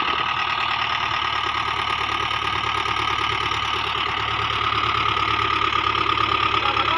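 Diesel tractor engine running steadily as the tractor drives through deep wet mud on iron cage wheels, with a steady high whine over the engine's rapid even beat.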